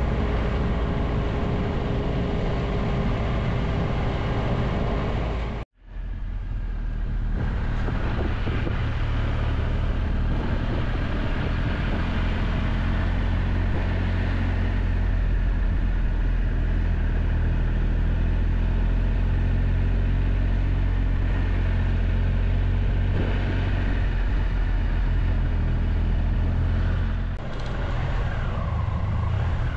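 Triumph Tiger Explorer 1200's three-cylinder engine running with a steady low rumble as the motorcycle rides at town speed, heard from on the bike. The sound cuts out for an instant about six seconds in.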